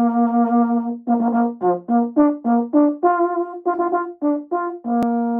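Brass music: a single horn-like brass instrument holds a low note, plays a quick run of short separate notes at changing pitches, then settles on another long held note. There is one sharp click about five seconds in.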